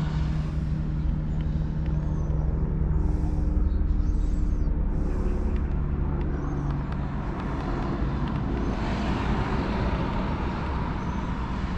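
Motor vehicle engine idling with a steady low hum, and road traffic around it. There are three short hisses about three to five seconds in, and a broader rush of traffic noise from about nine seconds on.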